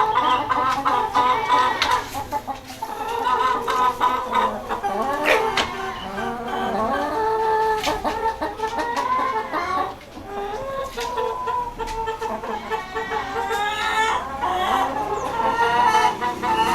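A flock of broiler parent-stock chickens clucking and calling without a break, many birds' voices overlapping, with a brief lull about ten seconds in.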